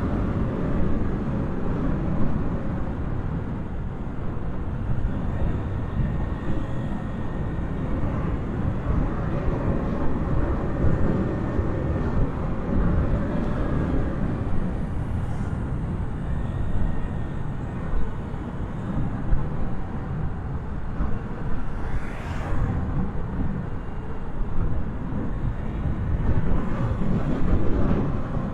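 Steady traffic noise from the Tomei Expressway: a continuous low rumble of vehicles that swells and eases slightly as they pass.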